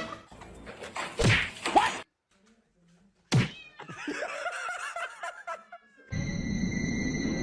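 A domestic cat meowing and yowling in short separate snatches, with a brief gap of near silence and a click partway through; about six seconds in, a steady held tone with music starts.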